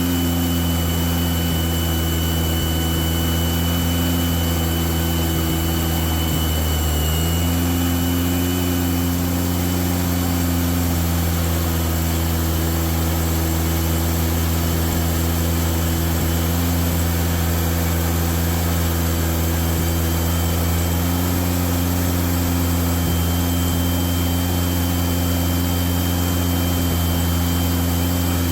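Freshly rebuilt Volkswagen 40 hp air-cooled flat-four engine running steadily on its first run, with a brief dip and recovery in engine speed about seven seconds in. The carburation is not yet right and the engine needs tuning.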